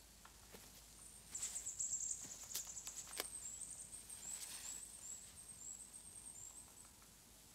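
A small songbird singing a thin, very high song of quick chirps, with a few faint sharp ticks in the middle.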